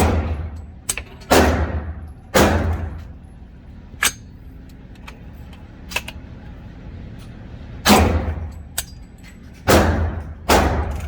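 DI45 pistol being fired: about six shots, three a second or so apart, then a pause of about five seconds, then three more. Each shot rings out with a long echo.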